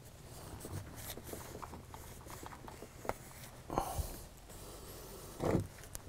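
A shop towel rubbing and wiping inside a motorcycle wheel bearing in its sprocket carrier, with faint scuffs and small clicks. There is a short knock near the middle and a louder dull knock near the end.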